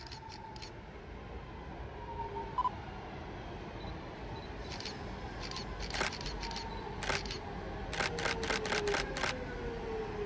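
Camera shutters clicking, singly at first and then in a fast run near the end, over the faint whine of a Class 323 electric multiple unit's traction motors falling slowly in pitch as the train slows into the station.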